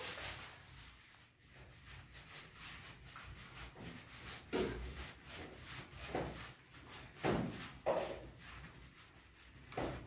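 Paint Racer roller on a long pole rubbed up and down a wall in repeated strokes, with a few louder strokes along the way. The roller is feeding its thick paint slowly.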